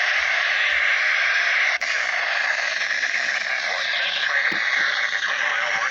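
Steady radio static hiss from a receiver tuned between transmissions, with a very brief dropout about two seconds in.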